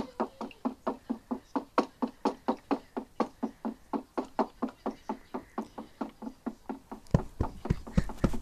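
A recording played back in a voice changer app: fast, even knocking, about four or five knocks a second, with a few heavier, deeper thumps near the end.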